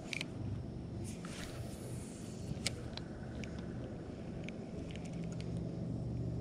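A steady low motor-like hum, with a few light sharp clicks from handling a spinning rod and reel.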